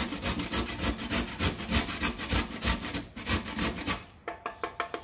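An avocado pit being grated by hand, in quick even rasping strokes, about four a second, that stop about four seconds in, followed by a few light scrapes.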